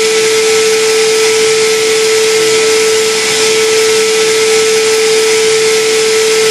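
Television speaker playing a loud, steady hiss of static with a single steady tone held under it: the off-air signal after an emergency-alert broadcast cuts out.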